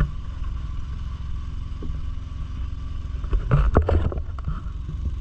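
Boat's engine running with a steady low drone, and a short cluster of knocks and clatter a little past halfway.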